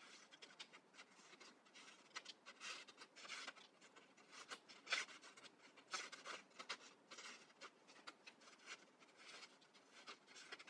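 Scissors snipping through paper, a faint, irregular run of short cuts with the rustle of the sheet being turned between them.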